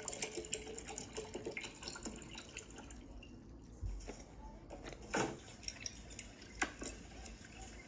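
Faint, scattered clicks and taps of wooden chopsticks and food against a ceramic plate, with soft eating sounds; a couple of sharper clicks about five and six and a half seconds in.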